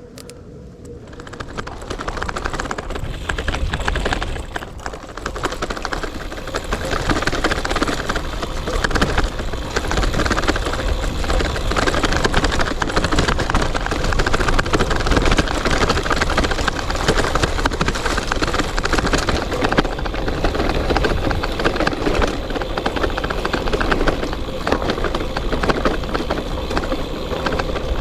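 Gravel bike rolling along an off-road gravel track: steady rumbling tyre and riding noise that builds up over the first second or two as the bike gets moving.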